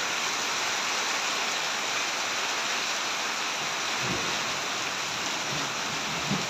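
Heavy rain pouring steadily onto a paved courtyard and open ground, an even hiss.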